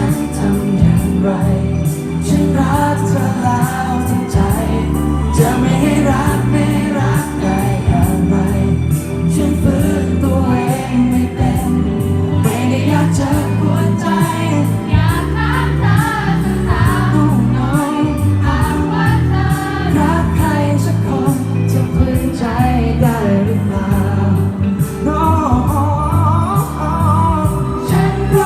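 Live pop song played by a band, with a sung melody over bass and drums.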